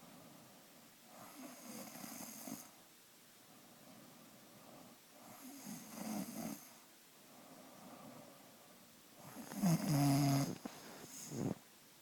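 Snoring: three long snores about four seconds apart. The third is much louder, with a buzzing, pitched rattle and a short extra snort at its end.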